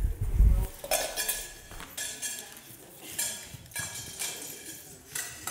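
Children's footsteps and scattered light knocks and clinks as they walk forward, opening with a dull low thump.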